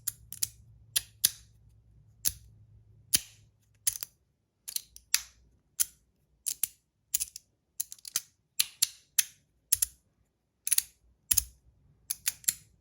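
3D-printed magnetic haptic slider fidget being slid back and forth: sharp, irregular clicks about two a second, some in quick pairs, as its magnets snap the sliding halves into their detents.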